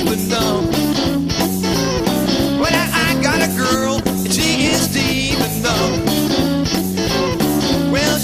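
Band music without vocals: a guitar lead with wavering, bending notes over bass and a drum kit keeping a steady beat.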